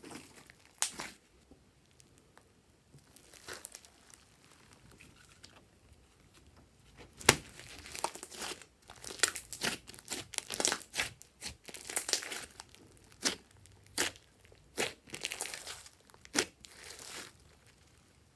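Hands squeezing, pressing and stretching a thick glossy slime, giving sticky clicks and crackles. They are sparse at first, then come thick and fast for about ten seconds before stopping near the end.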